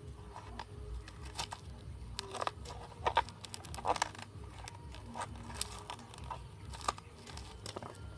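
Paring knife cutting and prying into the soft husk of a young trimmed coconut: irregular crunching and scraping clicks as a small diamond-shaped hole is cut out, with the sharpest snaps about three and four seconds in.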